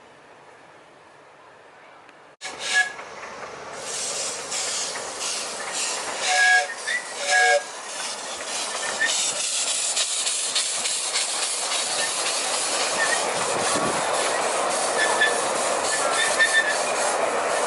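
Miniature 7¼-inch gauge steam locomotive working: a steady hiss of steam with a quick beat of exhaust chuffs, starting suddenly a couple of seconds in, and two short toots of its whistle.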